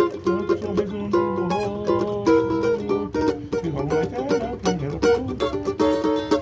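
Cavaquinho playing a samba melody in quick plucked notes and chords, with a lower bass line moving beneath it.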